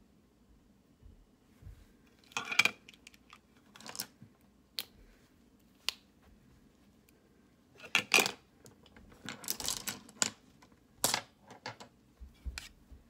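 Irregular clicks and rustles of small objects being handled close to the microphone. The loudest come about two and a half seconds in and again around eight seconds.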